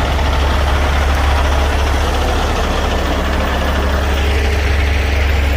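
A 2019 Peterbilt 389's 565-horsepower Cummins diesel engine idling steadily with a deep, even rumble.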